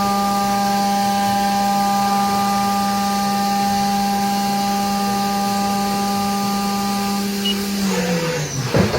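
Haas VF-2SS CNC vertical machining center's spindle running at a steady high speed with a steady whine over a hiss, then winding down in falling pitch about eight seconds in, ending in a brief knock.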